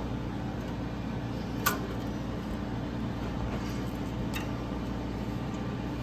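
Steady low machine hum, with a sharp metal click about 1.7 s in and a fainter one about 4.4 s in as a chain crimping tool works a link of a broiler's stainless wire conveyor chain.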